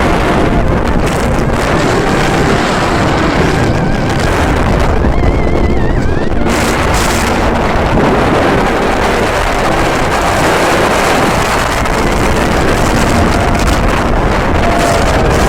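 Wind buffeting the microphone: loud, constant rumbling noise with faint voices under it.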